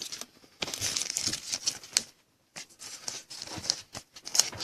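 Trading cards and their plastic packaging being handled: irregular crinkling and rustling with small sharp clicks, pausing briefly about two seconds in.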